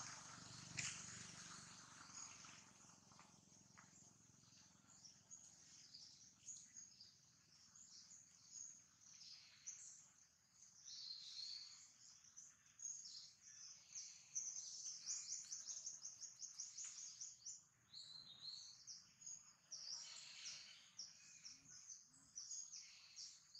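Faint, high-pitched bird chirping and trilling, sparse at first and busier from about the middle on, with quick runs of repeated notes.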